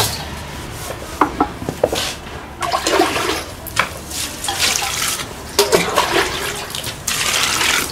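Water poured from a saucepan over dried shrimp in a mesh colander, splashing and rushing into a stainless steel basin in several surges. A few sharp clinks come near the start, as the shrimp go into the colander.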